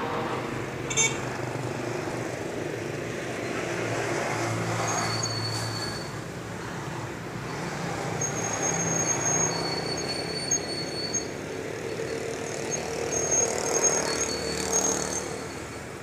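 Hands scooping soil out of a woven plastic sack and rustling dry straw, with a few sharp clicks, over a steady background hum like road traffic.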